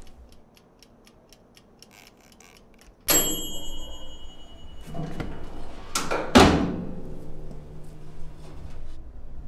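Countertop electric oven's mechanical timer ticking softly, about three ticks a second. About three seconds in, its bell rings once with a bright fading ding, signalling that the cooking time is up. A few seconds later come two clunks as the oven door is pulled down open, the second the loudest.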